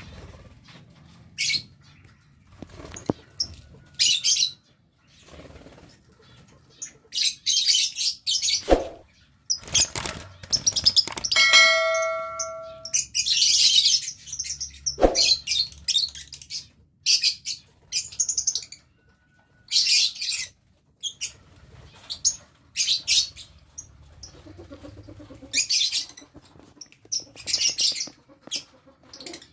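Lovebirds giving short, shrill chirps and screeches in irregular bursts, with bouts of wing flapping.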